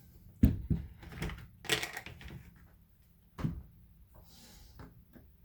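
Scattered clicks and knocks of Dye DSR+ paintball marker parts being handled and fitted together during reassembly. The sharpest knock comes about half a second in, with a brief rattly cluster near two seconds and a few lighter taps after.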